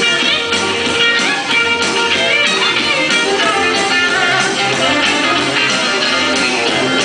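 Country dance music with guitar, played over a hall's loudspeakers.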